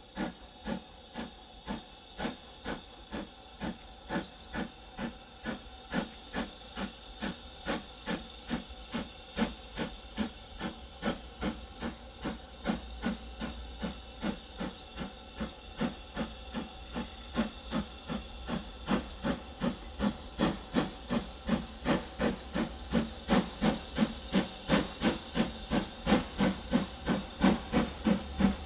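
BR Standard Class 5 4-6-0 steam locomotive No. 73082 'Camelot' working a train, its exhaust beating evenly at a little under two beats a second and growing steadily louder as it approaches.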